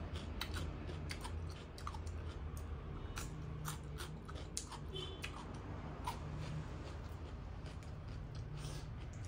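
Mouth biting and chewing raw white radish (daikon) slices close to the microphone: a run of irregular crisp crunches.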